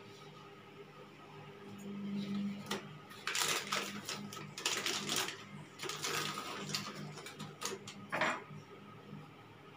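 Plastic packaging on a tub of milk powder rustling and crinkling as it is handled, in several bursts, with a sharp knock about eight seconds in.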